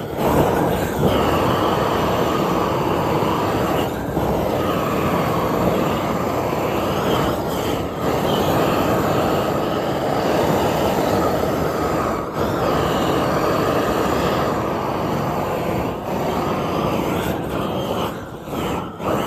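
Paint spray gun spraying primer onto cast-iron tractor axle parts: a steady rushing hiss of air and paint, broken by brief dips every few seconds as the trigger is let off and pulled again.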